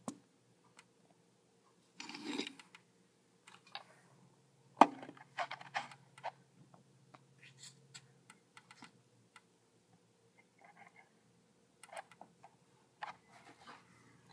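Scattered clicks and light taps of die-cast toy cars and a plastic blister-pack card being handled on a tabletop, with a brief rustle about two seconds in and a sharper click just before five seconds.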